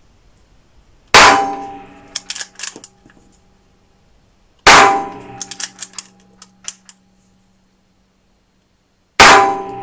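Three single shots from a Pallas BA-15 .22LR rifle, about three and a half and four and a half seconds apart. Each sharp crack leaves a ringing tail in the small range, followed by a scatter of light clinks.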